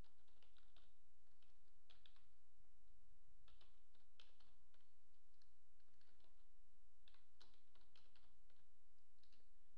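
Computer keyboard being typed on: faint, irregular clicks of single keys and short runs of keystrokes as a word is typed and corrected.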